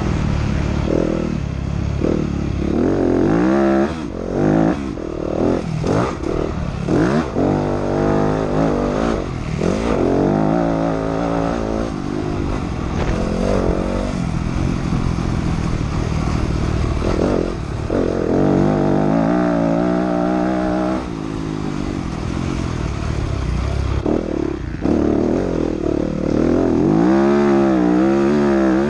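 Motocross bike engine heard on board, revving hard and dropping off again and again as it is ridden around a dirt track, the pitch climbing through each straight and falling as the throttle is shut.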